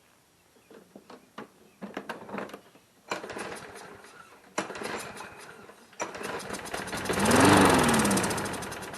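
Briggs & Stratton 6.75 hp push-mower engine being pull-started on starting fluid alone. Three pulls crank it in quick pulsing bursts. On the third it fires, revs up and then runs down and dies within about two seconds.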